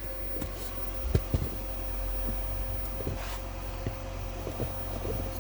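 Scattered light handling clicks and knocks over a steady hum, with a brief hiss a little past the middle.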